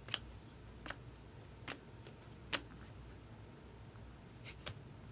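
About six short, sharp clicks and snaps of trading cards being handled and set down, spread unevenly, with the loudest about two and a half seconds in.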